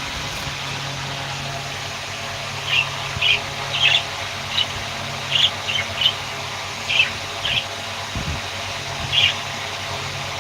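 Budgerigars chirping: a dozen or so short, sharp calls at irregular intervals over a steady background hiss.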